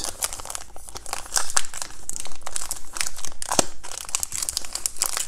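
Wrapper of a pack of baseball cards crinkling and tearing as it is opened, a dense run of sharp crackles.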